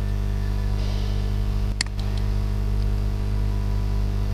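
Steady low electrical hum and hiss on the recording, with a single sharp computer-mouse click a little under two seconds in.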